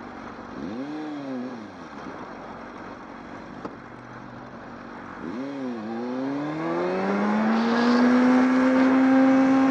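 Sport motorcycle engine blipped twice, its pitch rising and falling each time. It then accelerates hard, the pitch climbing and then holding high and loud near the end, over a steady rush of wind noise.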